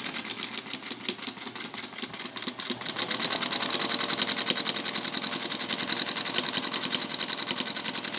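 1950 Zündapp sewing machine running, its chain-driven mechanism and needle clattering in a fast, even rhythm that grows louder about three seconds in.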